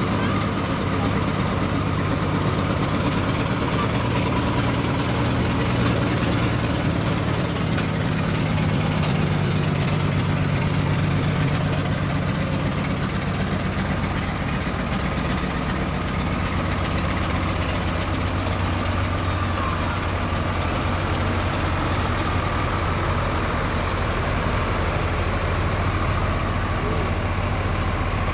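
Fire trucks' diesel engines running at low speed as the trucks roll past slowly one after another, a steady low engine drone that swells about ten seconds in.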